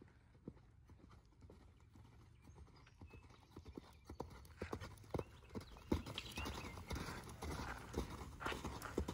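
Hoofbeats of a horse cantering under a rider on arena sand, growing louder as the horse comes nearer about halfway through.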